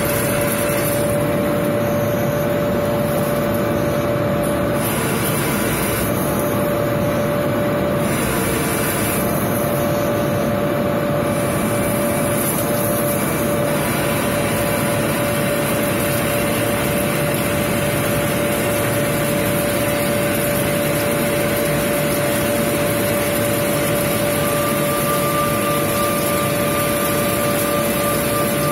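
16A20F3 CNC lathe machining a metal roller under flood coolant: the spindle and chuck running steadily with a constant hum and the hiss of coolant spray. About 24 seconds in, a second, higher whine joins.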